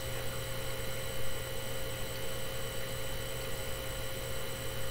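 Steady low electrical hum with an even hiss: room tone with no distinct event.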